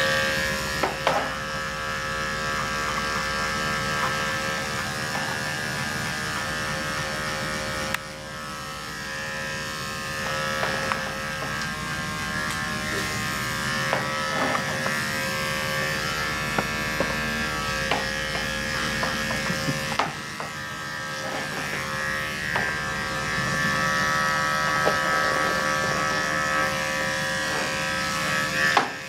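Corded electric dog grooming clippers running with a steady buzz as the blade cuts through the dog's coat, with scattered small clicks and knocks and a few shifts in the pitch and loudness of the buzz.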